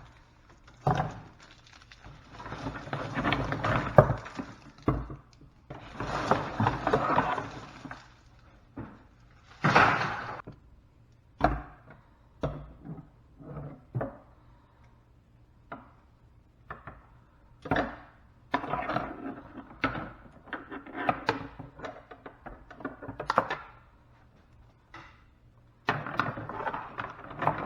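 Plastic electrical conduit being worked off bundled wire by hand: irregular cracking, knocking and clicking, with stretches of crackling as the plastic is pulled away and the wires are handled.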